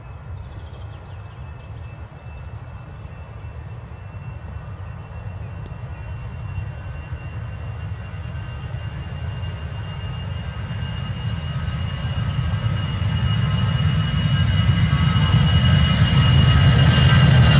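Airbus A319-111 on takeoff, its CFM56 turbofan engines giving a low rumble with a steady high whine on top, growing steadily louder.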